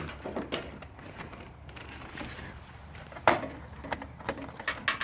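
Scattered clicks and knocks of a motorcycle fairing being handled and fitted back into place, the loudest a single sharp knock about three seconds in, followed by a few lighter clicks near the end.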